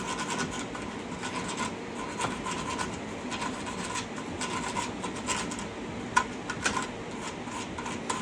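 Small hand brush scrubbing the threads of a shock-absorber mounting stud: a run of irregular scratching strokes, with a couple of sharper clicks about six seconds in.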